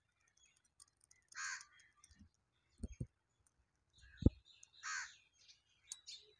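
Crow cawing twice, about three and a half seconds apart, with a few short low thumps in between, the loudest about four seconds in.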